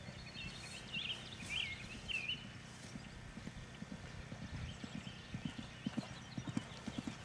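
Hoofbeats of a galloping horse on grass: dull rhythmic thuds that grow louder from about three seconds in as the horse comes closer. A few high chirps sound in the first two seconds.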